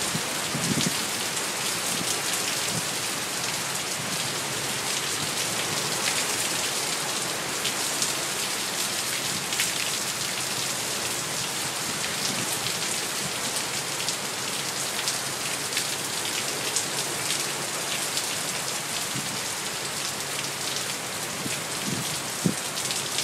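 Heavy squall-line rain pouring down steadily, an even hiss of rain on the ground and surfaces.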